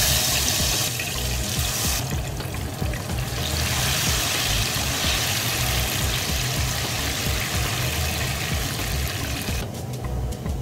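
Diced plantain frying in hot oil in a pan: a steady sizzling hiss that drops away shortly before the end.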